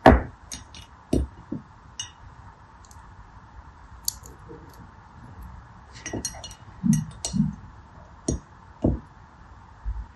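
Small colored beads being handled and dropped into a ribbed glass dish: scattered clicks and clinks on the glass with a few soft thuds, the loudest a knock right at the start.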